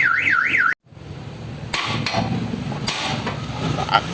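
A warbling alarm-like tone that cuts off abruptly under a second in. It is followed by workshop noise and a few sharp knocks of metal tools on the car's front suspension as the mechanic starts taking the lower arm assembly apart.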